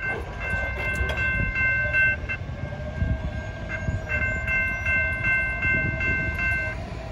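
Electronic railroad crossing bell (e-bell) dinging in a quick steady rhythm, about two to three strikes a second, over a low rumble. The bell fades briefly about two seconds in, comes back about four seconds in, and stops shortly before the end.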